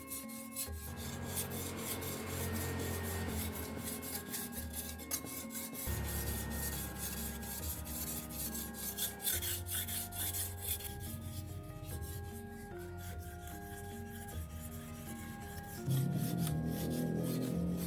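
Fast, rhythmic scraping strokes of a steel sickle blade being filed or sharpened, under background music with a plucked-style melody.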